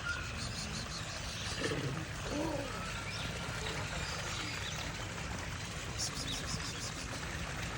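Outdoor background noise with faint, indistinct voices and two short runs of high ticking or chirping.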